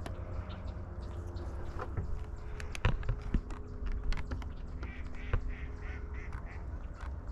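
Ducks quacking, with a quick run of calls from about five seconds in. A few sharp clicks sound around the middle.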